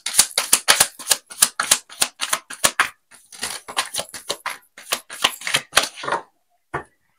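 A tarot deck being shuffled hand to hand, a quick run of card slaps about five a second with a short pause about three seconds in. The shuffling stops about six seconds in, followed by one last tap near the end.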